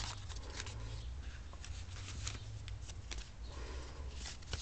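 Cardstock and paper tags rustling, sliding and ticking as a handmade card is handled and turned over, over a steady low rumble.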